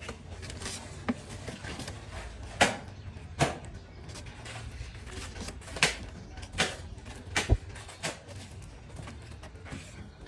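Irregular knocks and clatters of hand work, about eight sharp hits spaced unevenly, over a steady low hum.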